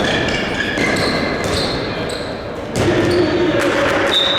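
Handball being bounced and thrown on a sports-hall court, with sharp knocks and short high shoe squeaks on the floor. The activity gets louder about three seconds in.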